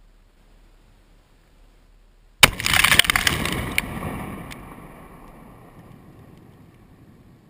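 A demolition explosive charge detonating about two and a half seconds in: a sudden loud blast followed by a rumble that fades over several seconds, with a couple of sharp clicks as it dies away.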